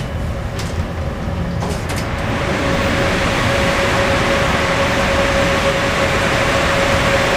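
Inside a Moscow-2020 (81-775/776/777) metro car standing at a station with its doors open: a few clicks in the first two seconds, then a steady hiss with a steady hum that grows slightly louder.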